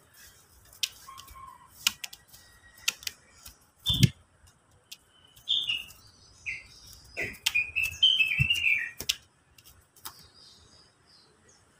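Oriental magpie-robin giving short high chirps and a brief quick run of notes, among sharp clicks and a couple of thumps as it hops and flaps about its wire cage.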